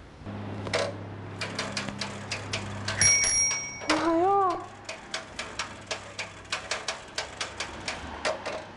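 Stylised bicycle sound effects: steady ticking of about three clicks a second over a low hum. A bicycle bell rings once, briefly, about three seconds in, followed by a short wavering tone.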